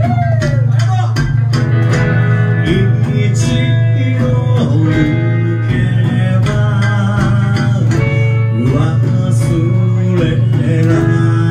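Live rock band music: a plucked jabisen (snakeskin-covered sanshin) and guitar over a heavy bass line and a steady drum beat, with a sung melody.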